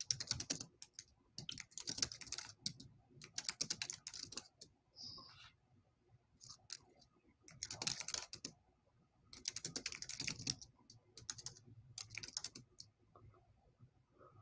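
Computer keyboard typing in quick bursts of keystrokes, about half a dozen short runs separated by brief pauses.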